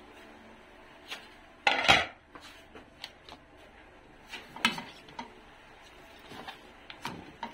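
A black plastic ladle knocking and scraping against a stainless steel skillet as pork ribs simmering in water are stirred. It comes as a few separate clatters, the loudest about two seconds in, over a low steady background.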